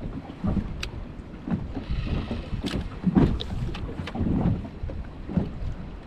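Small waves slapping irregularly against the hull of a drifting inflatable boat, with wind buffeting the microphone and a few light knocks.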